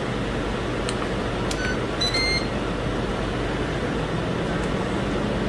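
Air fryer being set to preheat: a few button clicks, then short electronic beeps about two seconds in, over the steady hum of its fan running.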